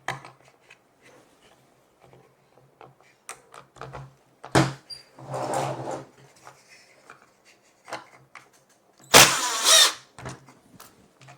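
Small clicks and knocks of screws and plastic caster parts being handled, with short bursts of a power driver driving a caster screw; the loudest burst, about half a second long, comes near the end.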